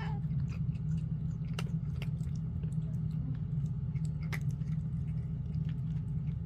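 Chewing, with scattered sharp, irregular mouth clicks over a steady low hum.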